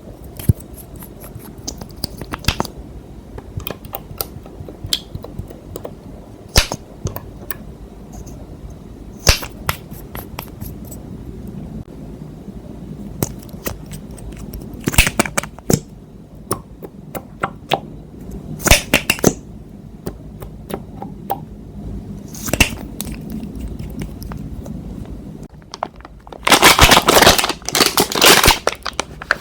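Slime being worked by hand, giving scattered sharp pops and clicks as air pockets burst, with a loud dense run of crackling near the end.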